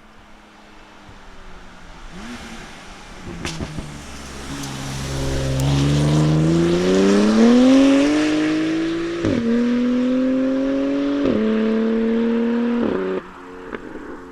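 BMW F80 M3's S55 twin-turbo straight-six, breathing through a titanium equal-length, single mid-pipe valved catback, accelerating hard. The exhaust note climbs with the revs and dips sharply at three quick upshifts. It then drops off abruptly as the throttle is lifted near the end.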